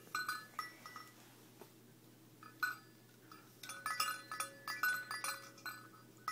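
Faint tinkling and clinking, on and off, from the chime inside a roly-poly chicken toy as it is rocked and handled.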